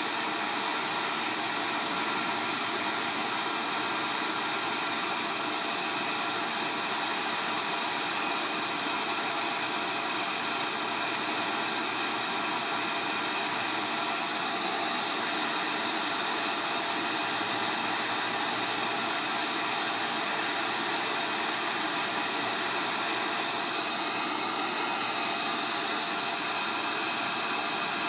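Heat gun blowing on high, a steady even hiss of hot air, held on a phone circuit board to melt the solder for a replacement USB charger port.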